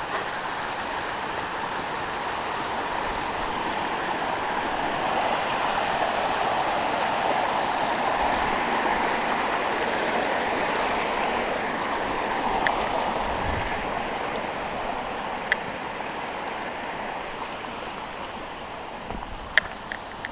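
Mountain stream rushing over rocks, a steady noisy flow that swells as the walker reaches and crosses it and then fades as they move on. A few short sharp clicks stand out late on.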